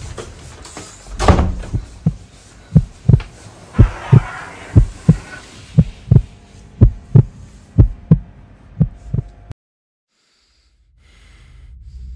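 Heartbeat sound effect: paired lub-dub thumps about once a second, after a single heavier thump about a second in. The beating cuts off suddenly, and after a short silence a low drone swells near the end.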